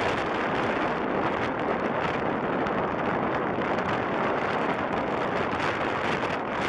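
Wind buffeting the microphone: a steady rushing noise with no letup.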